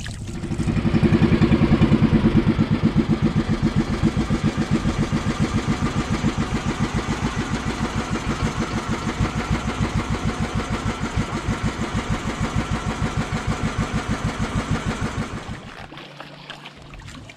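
A small engine running at a steady speed with a fast, even putter. It comes in loud just after the start, eases slightly, then fades out near the end.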